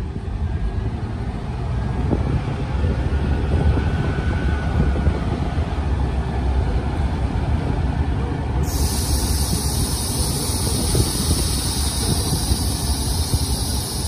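Car driving along a gravel road: a steady low rumble of engine and tyres on loose gravel. A steady high hiss comes in suddenly a little past halfway and holds.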